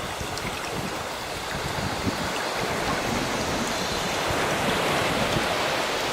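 Sea waves washing ashore, a steady rush of surf that swells and grows louder about halfway through as a wave breaks and runs in.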